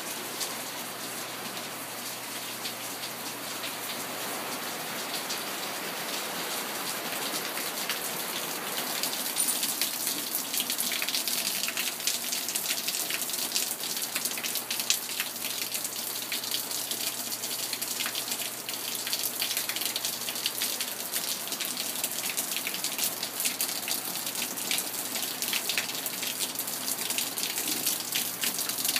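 Heavy winter rain falling steadily on a deck and yard. From about ten seconds in, water pouring off the roof eave splatters close by in dense, sharp drips, and the sound grows louder.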